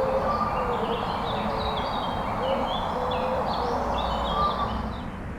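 Birds calling over a steady background noise, with quick high chirps and short, low, gliding calls repeating throughout.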